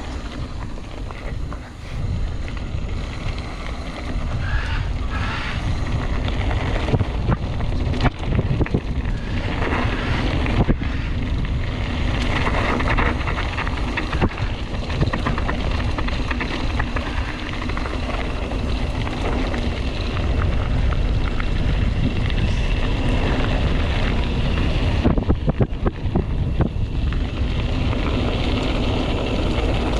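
Mountain bike descending fast on a rough trail: wind buffeting the action-camera microphone, with tyres rumbling over the ground and frequent knocks and rattles from bumps.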